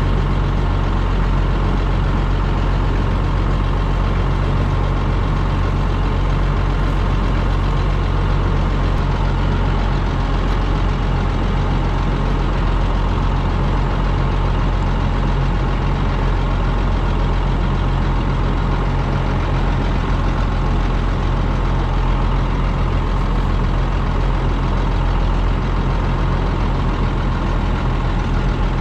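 A large engine running steadily at an unchanging speed, a loud, even drone with a low hum.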